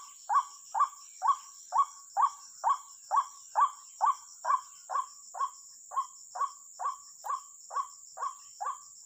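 White-breasted waterhen (ruak-ruak) calling: short call notes repeated evenly, a little over two a second, slightly fainter in the second half.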